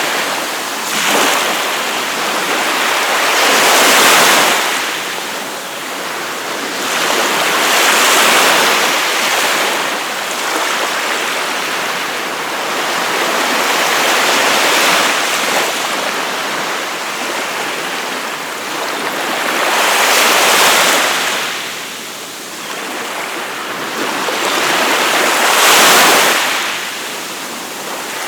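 Waves breaking on a beach and washing up the shore, one swell every four to six seconds, with a steady hiss of surf between them.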